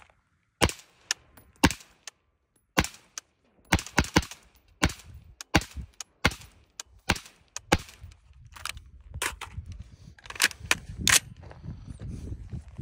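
Suppressed shots from an AR-style rifle fitted with a CGS Sci-Six suppressor, about two dozen single shots at an uneven pace with a few quick runs of two to four. A low rumble builds underneath in the second half.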